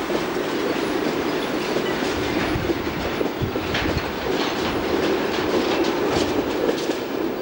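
Box wagons of a freight train rolling along the track, the wheels clicking and clacking over the rail joints in a steady rumble, with sharp clicks here and there.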